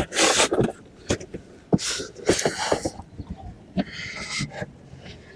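Handling noise from moving a large folding solar panel and its case: several short rustling, hissy bursts mixed with light clicks and knocks.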